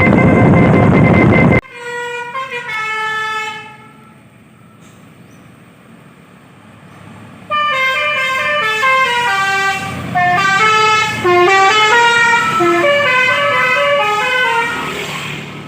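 A truck's Basuri V3 'telolet' musical horn playing tunes of quick stepped notes: a short phrase about two seconds in, then a longer melody from about halfway that fades near the end. Before it, a loud noisy sound cuts off abruptly about one and a half seconds in.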